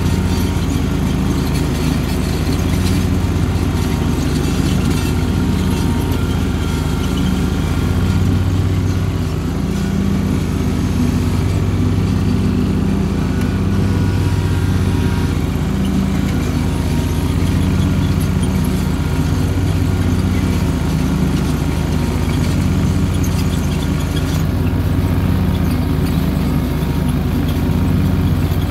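Cub Cadet 2084 garden tractor's engine running steadily under load while mowing with a 60-inch Haban deck, a loud low hum that swells and eases slightly.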